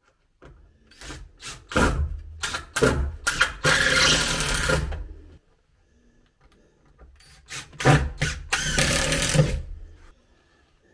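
Makita cordless impact driver driving two screws down into a wooden stair tread. Each run starts with a few short blips of the trigger and then hammers on steadily for a few seconds as the screw goes in.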